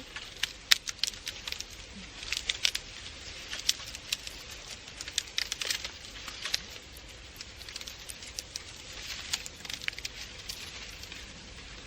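Dry reed stalks rustling and crackling as they are handled and bent, a dense run of short crisp snaps and rustles.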